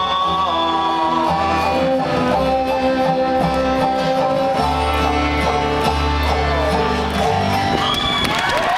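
Live acoustic band playing the closing bars of a song: upright bass notes under plucked acoustic strings, with held sung notes.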